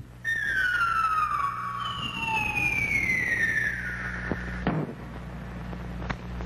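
Cartoon whistle sound effect: a long whistle falling in pitch, then a second, higher one sliding down over it, as a character flies through the air. A short sharp knock comes near five seconds in, over a steady low hum.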